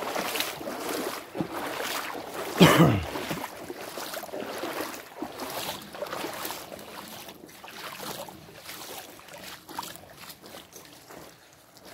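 Footsteps wading through shallow creek water, sloshing and splashing at a walking pace and growing fainter toward the end, with one brief louder noise about two and a half seconds in.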